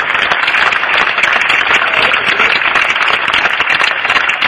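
Large crowd applauding: a dense, steady crackle of many hands clapping.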